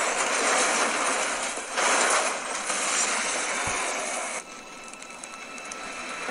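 Loud rushing noise of a car being driven fast, with a louder surge about two seconds in. The noise cuts off suddenly about four and a half seconds in, leaving a quieter hiss with a few steady high tones.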